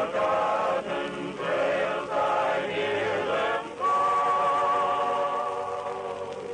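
A vocal group singing a western song in harmony, in short phrases, then holding one long note from about four seconds in that slowly fades away.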